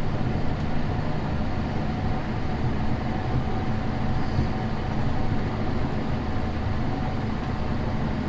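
Tractor engine running steadily at an even speed, with a thin steady whine above the engine hum.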